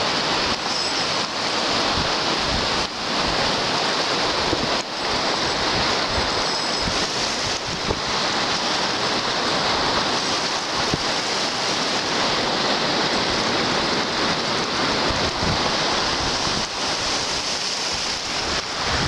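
Small lake waves washing and breaking in the shallows, a steady rushing wash, with wind rumbling on the microphone.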